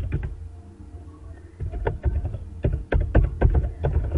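Computer keyboard being typed on: a run of quick key clicks, sparse at first and coming thick and fast in the second half, over a low steady hum.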